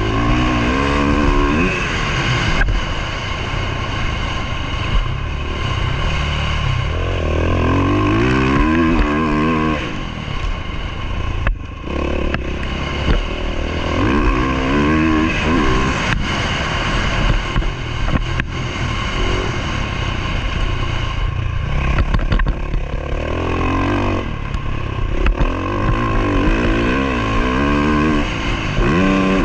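Motocross dirt bike engine being ridden hard, revving up and dropping back over and over as the throttle opens and closes. Heard from the rider's helmet camera, with a few sharp knocks along the way.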